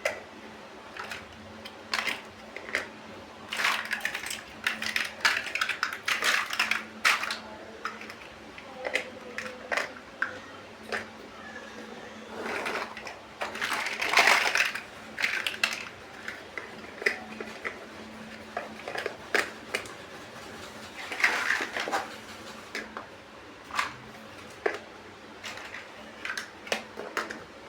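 Small plastic building bricks clicking, snapping and clattering as they are handled and pressed together, in irregular clusters of sharp clicks.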